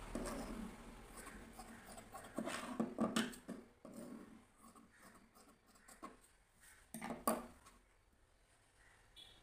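Cotton fabric pieces rustling and sliding as they are smoothed and moved on a tabletop, with scattered handling taps; the loudest bursts come about three seconds in and again near seven seconds.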